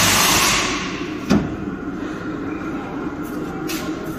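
A loud hiss that fades over the first second, then a single sharp knock, with a quieter steady hiss and workshop noise after.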